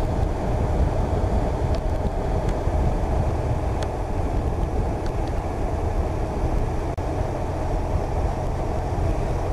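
Motorcycle engine running steadily at road speed, mixed with the rush of wind over the moving bike.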